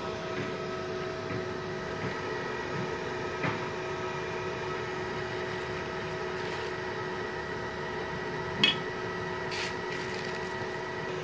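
Multipro EG 200A SC inverter arc welder idling with its cooling fan running: a steady hum carrying several steady whining tones. A short sharp click comes about eight and a half seconds in.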